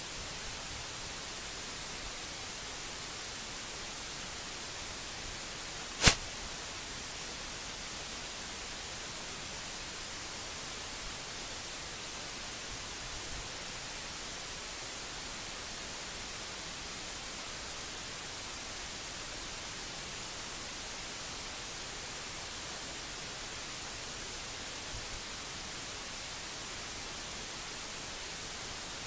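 Steady hiss of an open microphone with no other activity, broken once about six seconds in by a single sharp click.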